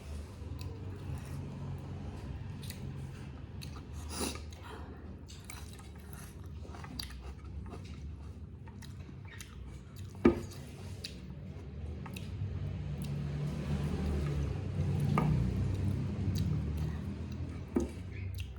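Close-miked chewing and wet mouth sounds of someone eating chicken curry with rice, with scattered small clicks and one sharp knock about ten seconds in.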